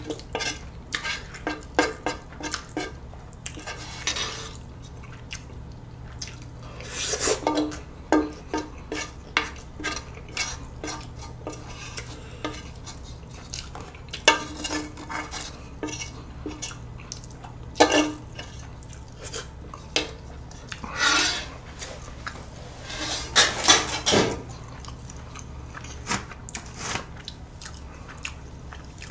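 Wooden spoon scraping and clicking against a metal pan while the last of the food is eaten from it: many quick clicks, with a few longer scrapes.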